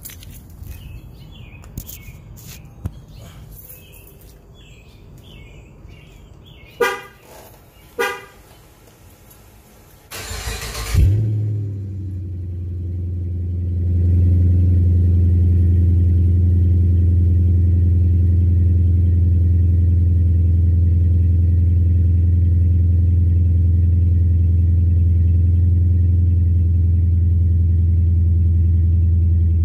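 Two short beeps, then about ten seconds in a 2019 Chrysler 300S's 5.7 Hemi V8 cranks and catches on a cold start. It settles into a deep, steady idle through Flowmaster Super 44 mufflers, heard from right under the tailpipes, growing louder about fourteen seconds in, with no revving.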